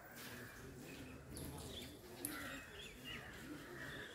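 Birds chirping in the surrounding trees, with faint voices underneath and a brief click a little past two seconds in.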